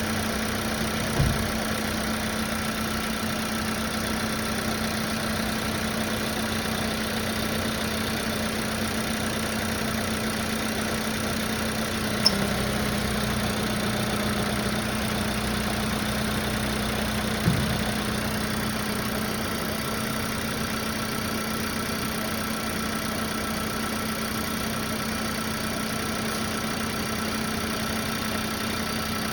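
Volkswagen Virtus GT's turbo petrol four-cylinder idling steadily, with one sharp click from the engine bay about twelve seconds in: the unexplained clicking noise the owner is tracking down. Dull thumps come about a second in and again about five seconds after the click, and a lower hum runs between the click and the second thump.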